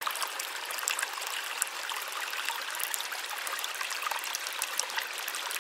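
Small stream of water running steadily down a plastic-lined channel, with many small splashes and drips throughout.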